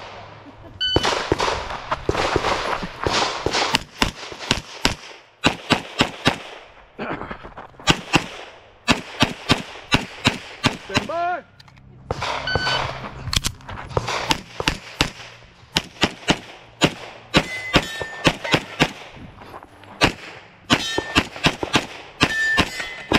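Handgun fire during a practical pistol stage run: a short electronic shot-timer beep about a second in sets off fast strings of shots, many in quick pairs. Steel targets ring with short pings among the shots near the end.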